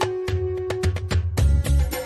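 Background music with a steady drum beat and a held melodic note; the music grows fuller about one and a half seconds in.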